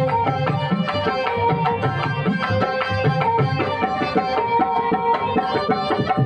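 Sindhi surando, a folk lute of Sindh, playing a quick, busy melody of rapid repeated notes over held tones, with low drum strokes keeping a fast rhythm alongside.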